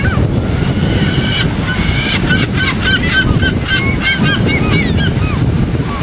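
Gulls calling: many short, arching cries, several a second and overlapping, with one longer held call near the start; the calls die away near the end. Under them runs the steady rush of water breaking over rocks.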